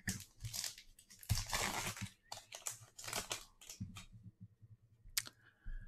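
Foil wrapper of a football trading-card pack crinkling and tearing as it is ripped open, for about four seconds. A single sharp tap follows about five seconds in.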